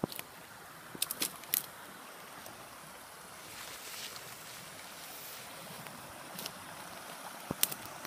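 Small woodland stream rushing steadily, its noise growing a little louder about halfway through. Several sharp crackles of footsteps on dry leaves and twigs come near the start and one near the end.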